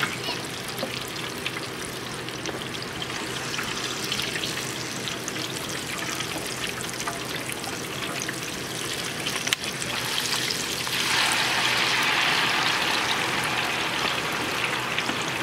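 Food frying in hot oil in a propane-fired twin-basket deep fryer: a steady sizzling hiss with oil bubbling. About ten seconds in the frying grows noticeably louder.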